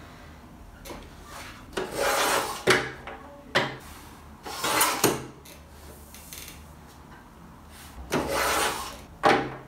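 Rotary paper trimmer's cutting head slid along its rail, slicing through card notebook covers in three hissing strokes, with sharp clicks between them as the head and paper are set in place.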